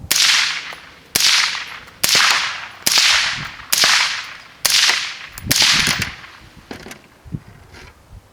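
Rifle shots: seven sharp cracks fired in quick succession, about one a second, each trailing off in a short echo, followed by a few faint clicks.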